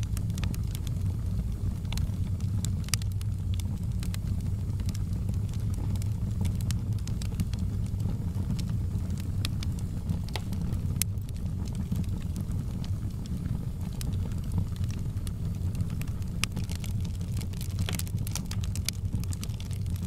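Wood logs burning in a fireplace: a steady low rumble of the flames with frequent sharp crackles and pops scattered throughout.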